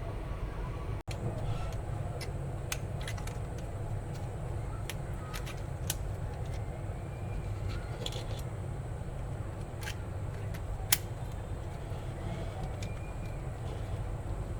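Wind rumbling on the microphone, with scattered light clicks and ticks, one sharper click near the end.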